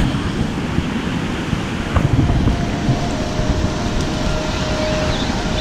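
Wind buffeting the microphone over ocean surf surging and washing across a rock ledge, a steady rushing noise with a heavy low rumble.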